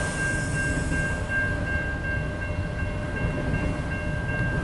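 A long freight train's cars, manifest cars and autoracks, rolling steadily past a grade crossing with a continuous low rumble. Over it, the crossing's warning bell rings steadily and evenly.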